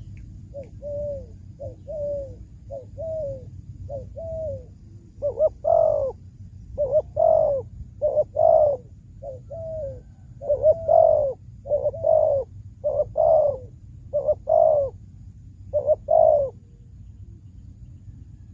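Malay-strain spotted dove, kept as a decoy, cooing in a long run of short two- and three-note phrases. The phrases are softer for the first few seconds and louder from about five seconds in, then stop about sixteen seconds in.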